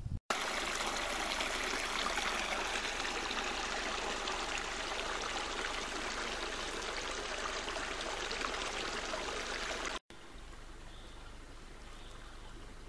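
Small forest stream running over fallen branches, a steady rush and trickle of water. After about ten seconds it cuts to a much quieter background hiss.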